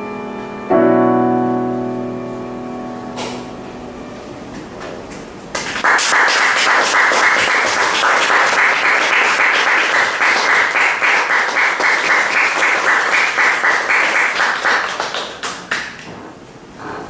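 The closing chord of piano and cello rings out and slowly fades. About five and a half seconds in, the audience breaks into applause, which goes on for about ten seconds and dies away near the end.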